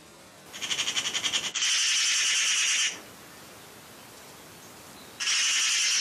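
Eurasian magpie alarm chatter, a harsh rattling call, in two loud bursts: the first starts about half a second in as a fast pulsing rattle and turns into a denser, steadier stretch for over a second, and the second comes near the end. It is the birds scolding at a fox.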